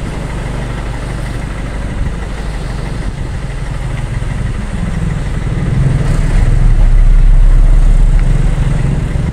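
Wind buffeting a phone microphone at the seashore: a loud low rumble that swells into a stronger gust about five seconds in and eases near the end.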